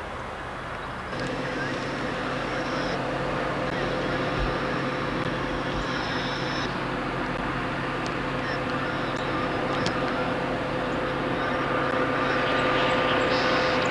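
VIA Rail F40PH diesel locomotive approaching at the head of a passenger train, its engine running with a steady hum that grows louder near the end.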